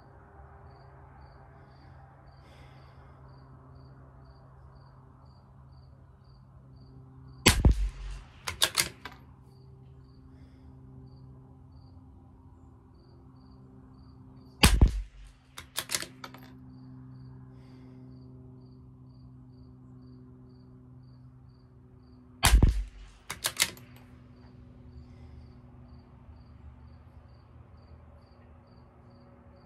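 Tikka T1X .22 LR bolt-action rifle fired three times, about seven seconds apart, each shot followed about a second later by the clicks of the bolt being worked to chamber the next round. Crickets chirp faintly and steadily between the shots.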